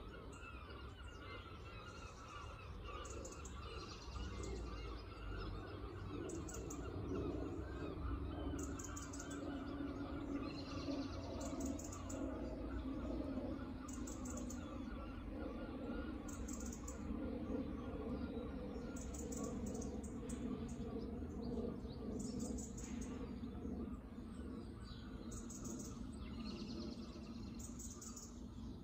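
Small birds chirping, short runs of high calls repeating about every two seconds, over a steady low background rumble.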